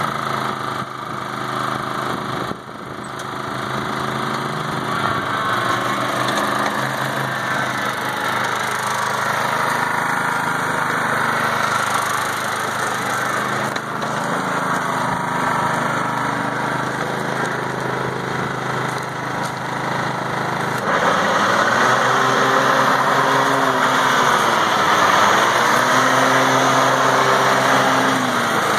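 New Holland zero-turn riding mower's engine running steadily as the mower is driven. It gets louder about three-quarters of the way in, and then its pitch sags and recovers.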